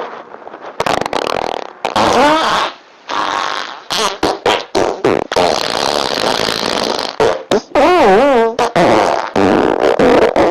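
Farts in quick succession, short and long, each cut off before the next. One longer fart about eight seconds in has a pitch that wobbles up and down.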